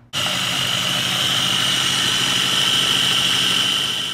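Countertop food processor motor running at speed, blending and emulsifying a thin garlic, lemon and olive-oil sauce. It is a steady whir with a high whine and is switched on right at the start.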